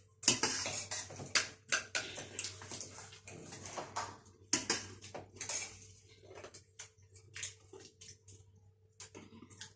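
People eating chatpate, a crunchy spicy puffed-rice snack: scattered crunching and chewing with small clinks of spoons and dishes, busier in the first half and thinning out toward the end.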